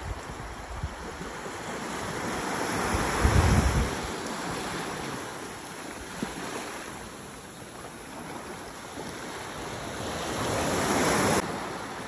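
Small sea waves breaking and washing up the shore in two swells, the first about three seconds in with a deep low rumble, the second building near the end and cutting off suddenly.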